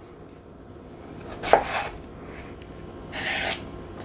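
A chef's knife cutting through a raw turnip onto a cutting board: one sharp chop about a second and a half in, then a short scraping sound of about half a second a little later.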